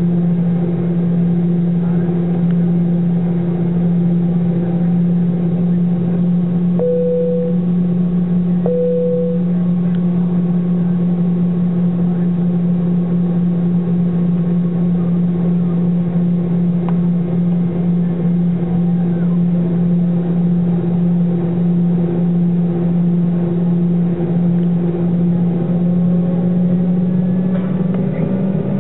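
Steady droning hum inside the cabin of a Boeing 717 as it taxis, with a strong low tone. It is broken about a third of the way in by two short, identical higher tones two seconds apart, and the hum rises slightly in pitch near the end.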